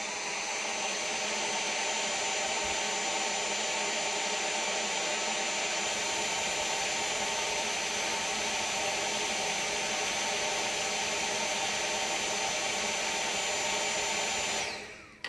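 Dyson V7 stick vacuum's motor running steadily on its low power setting, a rush of air with a thin high whine, drawing air through its extension wand into an airflow test box. It switches off near the end and the whine falls away as the motor spins down.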